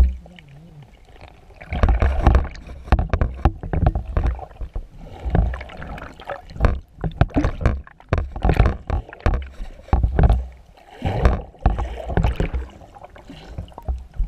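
Water splashing and bubbling around a camera held at the surface as a snorkeler swims, coming in irregular surges every second or two.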